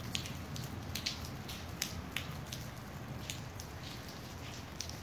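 Rain falling during a thunderstorm, with single drops striking close by as sharp, irregular ticks, most of them in the first half, over a steady low rushing hiss.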